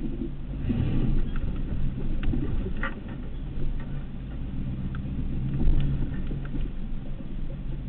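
Truck engine running at low speed, heard from inside the cab as a steady low hum, with a few scattered clicks and knocks from the cab.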